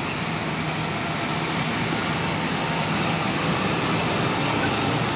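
Large autonomous tractor's engine running steadily as it tows a sprayer through a standing crop toward the listener, a low hum under a broad rushing noise that grows slightly louder as it comes closer.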